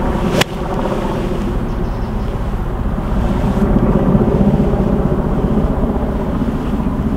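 A golf driver strikes a ball off a tee: one sharp crack about half a second in. A steady low drone runs underneath.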